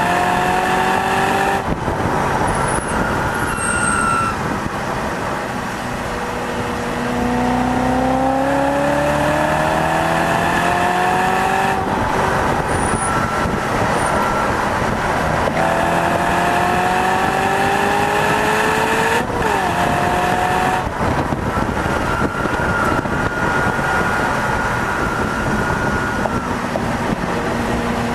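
Track car's engine under hard acceleration, its pitch climbing steadily through the revs several times and dropping back at each gear change, with a quick rev blip about two-thirds of the way through. Steady wind and road noise run underneath.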